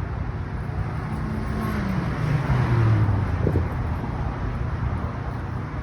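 Steady low rumble of a car driving, with an engine note that falls in pitch about two to three seconds in.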